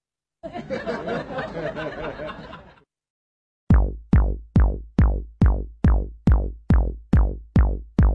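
Electronic music beat: a deep drum-machine kick drum thumping steadily about two and a half times a second, each hit dropping quickly in pitch, starting about three and a half seconds in. Before it, a couple of seconds of a wavering, pitched sound, then a short silence.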